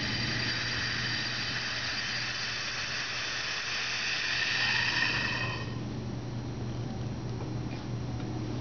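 Air hissing back into an evacuated bell jar, with several steady whistling tones, swelling and then stopping abruptly about five and a half seconds in as the pressure inside returns to normal. A low steady hum runs underneath.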